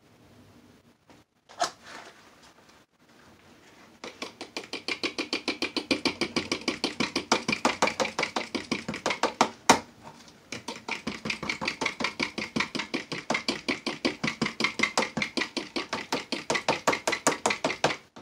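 A metal spoon stirring colourant into soap batter in a plastic pitcher, clicking against the pitcher's sides several times a second. There is a single knock before the stirring begins, and a short break in it about ten seconds in.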